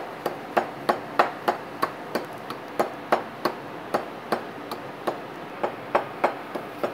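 Wooden pestle pounding toasted cumin and coriander seeds in a wooden mortar, a steady knock about three times a second as the seeds are ground toward a powder.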